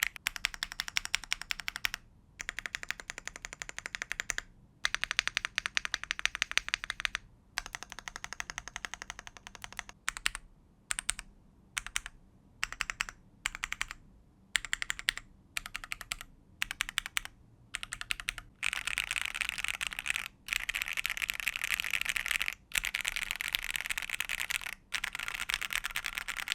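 Shark67 aluminium 65% keyboard with Strawberry Jelly V5 linear switches and ABS keycaps being typed on. Quick runs of keystrokes alternate with short pauses, then come slower single key presses at about two a second, then a long stretch of fast typing near the end.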